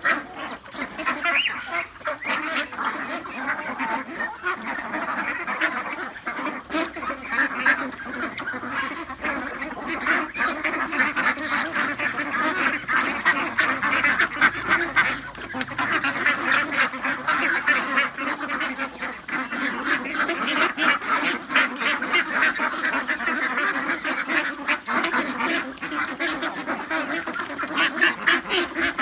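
A large flock of 40-day-old ducks quacking continuously, many calls overlapping into a steady chatter.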